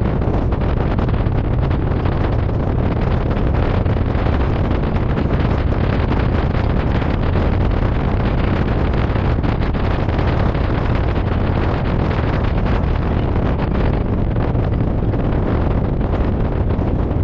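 Steady rumble of wind buffeting the microphone, mixed with a trike's engine and road noise while riding along at speed.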